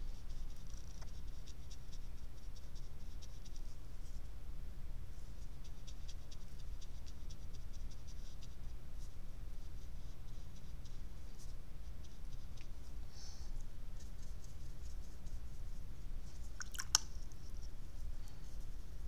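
Faint scratchy, ticking strokes of a watercolour brush on paper over a low steady hum, with one sharp click near the end.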